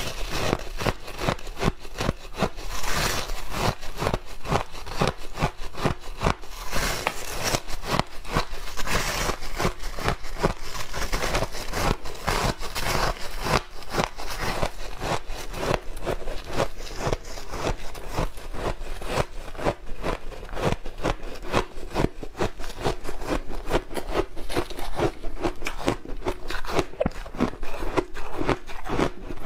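Refrozen shaved ice being bitten and chewed, a fast, continuous run of crisp crunches.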